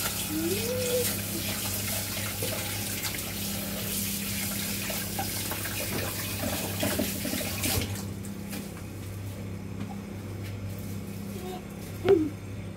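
Kitchen tap running into the sink, a steady hiss that is shut off about eight seconds in, over a steady low hum. A short knock sounds near the end.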